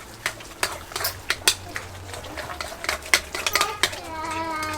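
A spoon clinking and scraping against a bowl while mixing grated cucumber into yogurt, in irregular sharp clicks a few times a second. Near the end a voice holds a short pitched sound.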